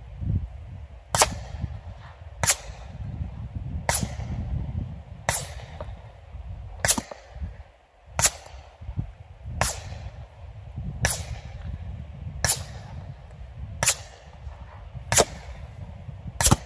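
Suppressed AR-45 pistol-calibre carbine in .45 ACP with a SilencerCo Hybrid suppressor, fired from about 100 yards away: twelve sharp cracks, evenly spaced about a second and a half apart.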